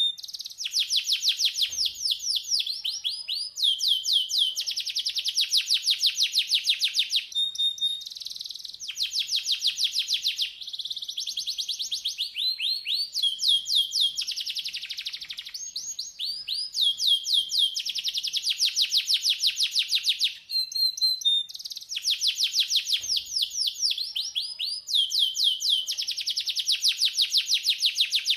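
Domestic canary singing a long continuous song of fast trills, each a run of rapidly repeated notes lasting a few seconds, one after another with brief breaks. It is a master song recording, used for young canaries to learn from.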